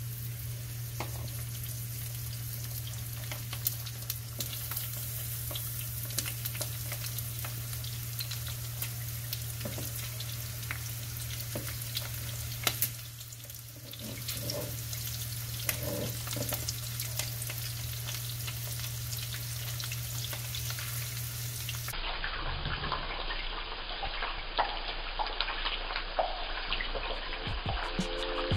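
Spice-coated mackerel pieces sizzling in shallow oil in a nonstick frying pan, with scattered pops and crackles over a steady low hum.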